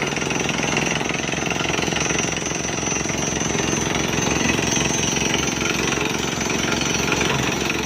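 Rock drill hammering steadily, a fast unbroken run of blows with a thin high tone over it.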